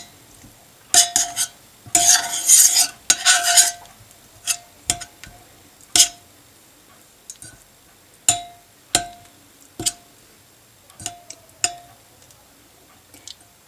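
A spoon stirring lemon slices and herbs in a saucepan of water and pressing the lemons against the pot to squeeze out their juice. A burst of scraping comes about two seconds in, then single knocks of the spoon on the pan roughly every second, each followed by a short ring.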